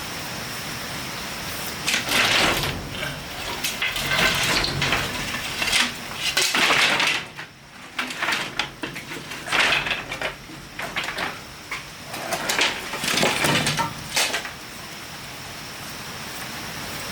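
Hard objects scraping and clattering in irregular bursts from about two seconds in until near the end, over a steady hiss.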